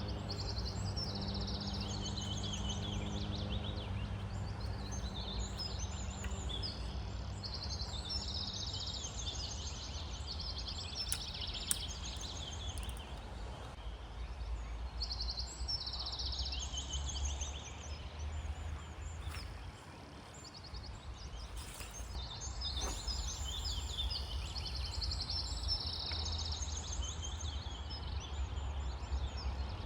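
Outdoor ambience: short high chirping phrases repeat throughout, over a steady low rumble. A faint steady hum fades out a few seconds in.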